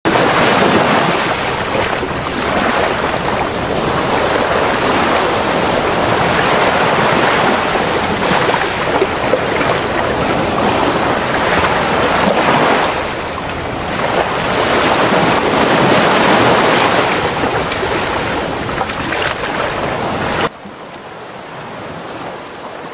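Ocean surf breaking and washing up a beach: a steady rushing hiss that swells and eases every few seconds, dropping suddenly to a much quieter wash near the end.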